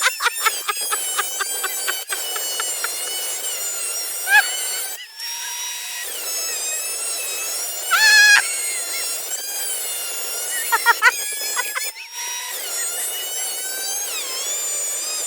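Thickness planer running through elm boards: a loud machine whine with many high pitched lines that sag and recover in pitch under load, with short squealing flurries and two brief breaks, about five and twelve seconds in.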